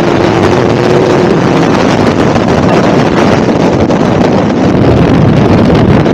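Loud wind rushing over a helmet-mounted camera during wingsuit flight, with a faint steady whistle in the first second or so.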